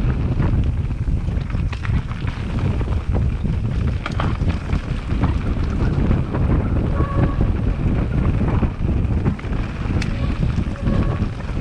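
Mountain bike riding down a rough dirt trail: a steady low rumble of wind buffeting the camera microphone, with frequent rattles and knocks as the bike bounces over the ground.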